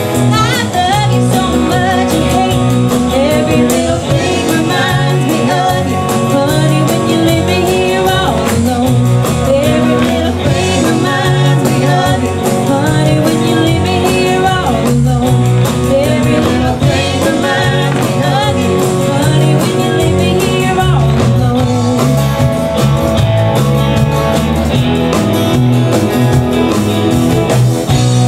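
Live country band playing: a woman singing over strummed acoustic guitar, fiddle and a drum kit with a steady beat.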